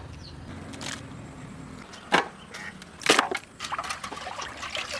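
Heavy knife chopping beef and bone on a wooden log: single sharp chops about a second apart, then a quicker run of lighter knocks near the end.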